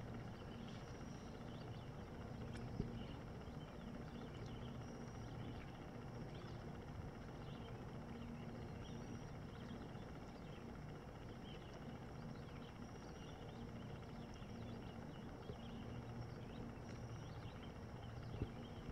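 Faint, steady outdoor background noise with a low hum that fades in and out and scattered faint high chirps. Two brief knocks, about three seconds in and near the end.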